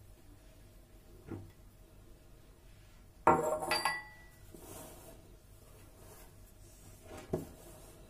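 Stainless-steel mixing bowl clattering against the kitchen counter about three seconds in, ringing briefly, with softer knocks of the bowl before and after as dough is worked by hand in it.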